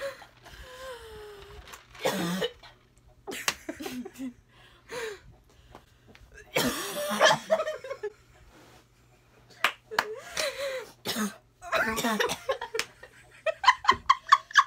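Two young women coughing and gagging in short, separate bursts, mixed with laughter, with a quick run of sharp repeated bursts near the end.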